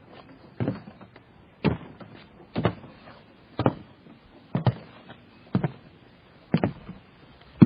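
Footsteps in tennis shoes on a wooden boat dock, walking at a steady pace of about one step a second. Each step lands as a light wooden clunk.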